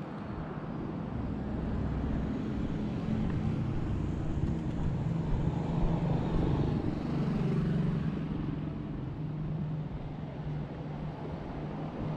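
Street traffic with a motor vehicle's engine running close by, getting louder through the middle and easing off toward the end.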